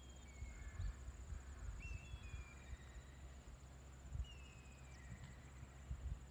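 Outdoor ambience: an insect trilling steadily, high-pitched and rapidly pulsing, with a few short, thin, falling bird calls and a low irregular rumble underneath.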